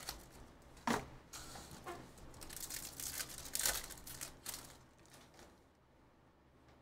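Foil wrapper of a Bowman Chrome baseball card pack crinkling and tearing as it is ripped open. A run of short crackles dies down after about five seconds.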